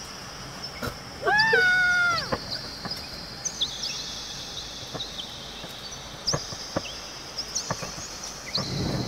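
Spooky sound-effect backing: steady high eerie whistling tones with scattered clicks, and a single drawn-out animal cry of about a second that rises and then dips slightly. A low thunder rumble starts building near the end.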